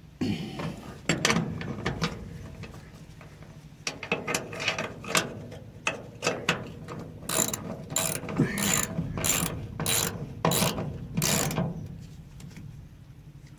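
Ratchet wrench clicking in repeated strokes as bolts are tightened, settling into an even run of strokes a little more than half a second apart in the second half.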